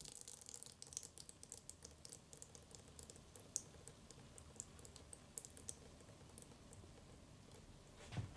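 Faint, scattered small clicks and crackles of a brittle brown cup being handled and broken apart in the hands, with one sharper click a little past halfway.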